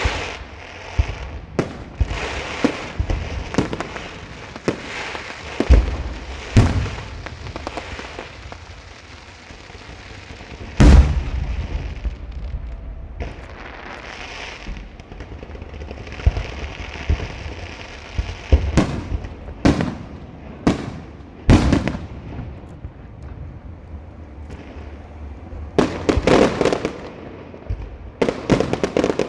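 Fireworks and firecrackers going off: irregular sharp bangs over a continuous crackle, with one very loud bang about eleven seconds in and a dense run of bangs near the end.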